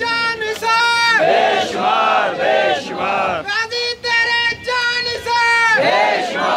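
Call-and-response slogan chanting: a man shouts drawn-out slogan lines with held syllables, and a crowd of men shouts the answer back, several times over.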